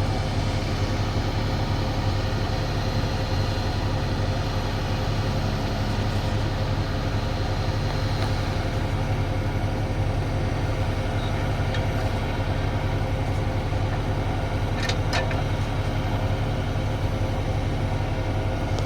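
Heavy diesel engine running steadily at an even pitch, with a faint high whine that fades out about halfway through. Two brief sharp clicks come near the end.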